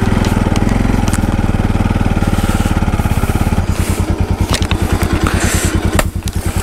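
Motorcycle engine running as the bike rides over a rough dirt track, with a few knocks from the bumpy ground. A little over halfway through it drops to a slower, steady idle as the bike stops at a muddy water crossing.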